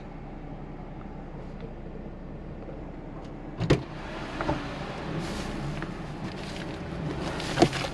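Steady car cabin noise, with a sharp knock about three and a half seconds in and another near the end.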